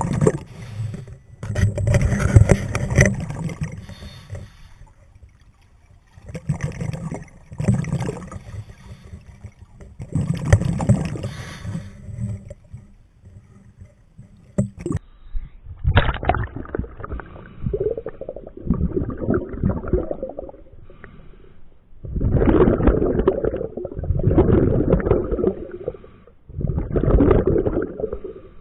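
Scuba diver breathing underwater through a regulator: repeated gurgling bursts of exhaled bubbles every few seconds, with quieter gaps between. Partway through, the hiss drops away and the bursts sound duller.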